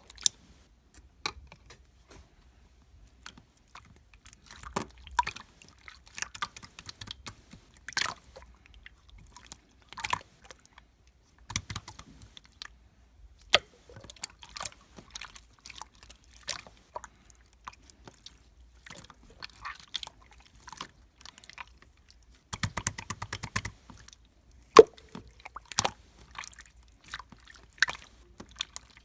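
Close-up irregular crackling and clicking with small wet pops, in scattered bursts, with a quick dense run of crackles about two-thirds of the way through and again at the end.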